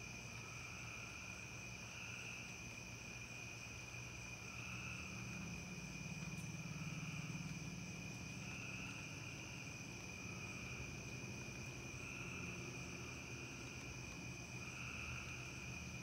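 A steady high-pitched trill from a chorus of night insects, with a second, lower call swelling about every two seconds. A faint low hum runs underneath.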